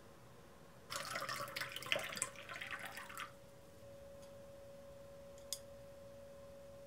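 Wooden chopsticks stirring natto, raw egg and rice in a ceramic bowl, a quick run of wet, sticky clicking for about two seconds, then a single light chopstick click a little later.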